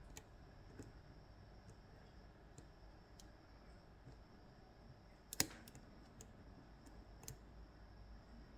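Faint, scattered metallic clicks of a lock pick and tension tool working the pins of an Ezcurra DS-10 lock, with one sharper click about halfway through and another a couple of seconds later.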